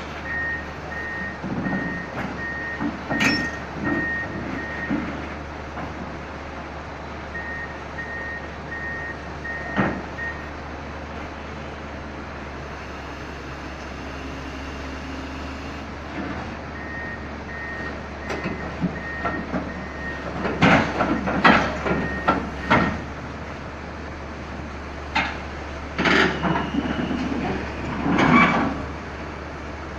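Komatsu hydraulic excavator's travel alarm beeping at about two high beeps a second, in three runs that stop and start, over a steady low diesel engine hum. Loud clanks and knocks come in the second half as the machine drives off the trailer.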